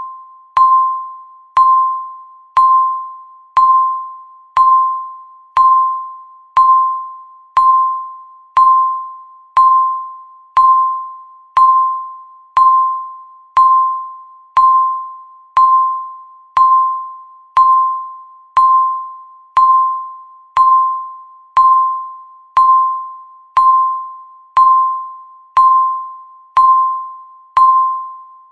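Electronic countdown timer beeping once every second, marking each second of the count. Each beep is a single clear tone that starts sharply and fades out before the next.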